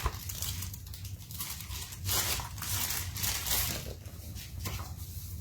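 Packaging being torn and rustled open by hand, in several short scraping bursts, over a steady low hum.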